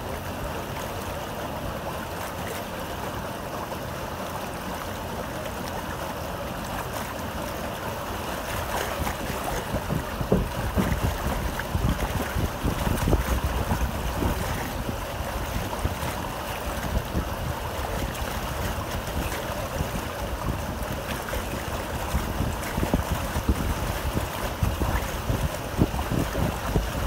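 A paddle steamer moving through river water, with water rushing and splashing steadily alongside. Wind buffets the microphone, the gusts growing stronger about a third of the way in.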